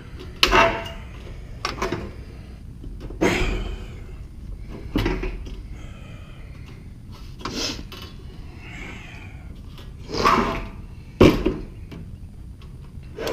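Galvanized sheet-metal drain pan being handled and shifted on a concrete floor: a string of irregular clanks and scrapes, some with a brief metallic ring, the loudest two near the end.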